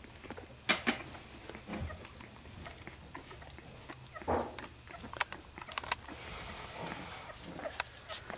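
A litter of two-week-old golden retriever puppies nursing: scattered sharp sucking and smacking clicks, with a short grunt about four seconds in.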